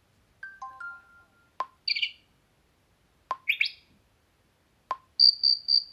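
Nature notification tones from a Xiaomi Redmi 9A played through the phone's speaker. A short chime opens, then three water-droplet plops follow about a second and a half apart, each followed by quick bird-like chirps.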